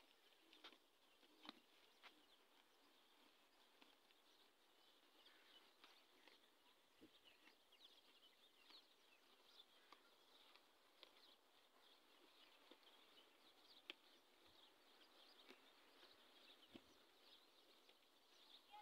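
Near silence: faint outdoor ambience with faint high chirps scattered throughout and a few soft clicks.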